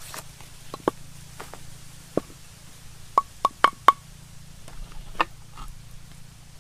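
Pestle knocking in a clay mortar while pounding a paste: a few scattered knocks, then four quick ringing knocks about three seconds in and one more about five seconds in.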